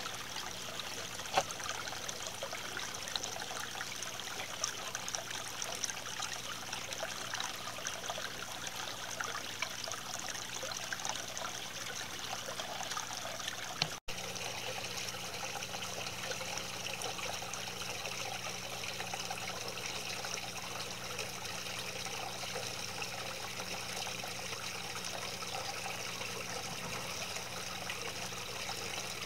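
Water trickling and splashing steadily from a small rock-style garden fountain, over a faint low steady hum. The sound drops out for a moment about halfway through.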